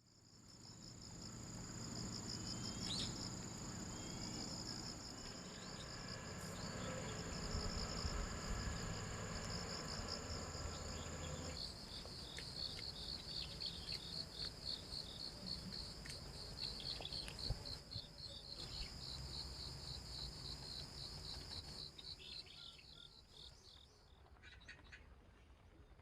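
Crickets chirping in high, steady trills, two at once. The higher trill stops about halfway through, while the lower, pulsing trill carries on and fades near the end.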